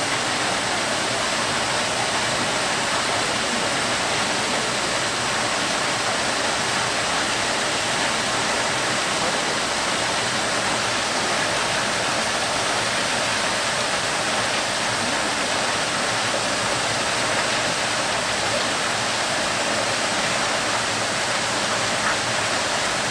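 Steady, even rushing noise with no breaks, like falling water.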